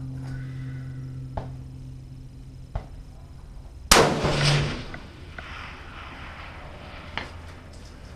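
A single shot from a Ruger Precision Rifle chambered in 6.5 Creedmoor, about four seconds in, its report trailing off over most of a second. Before it, a low steady hum fades out.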